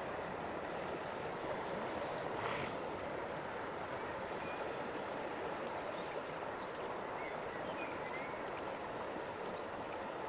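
River in flood running fast over rapids: a steady, even rush of water.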